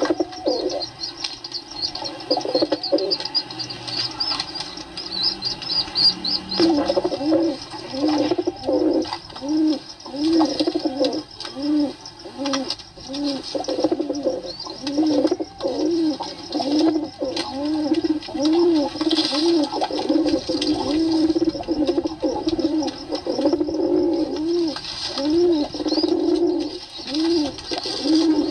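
Pigeons cooing: short coos that rise and fall, repeated over and over. High rapid chirping runs under the first six seconds or so, and the coos come thickly after that.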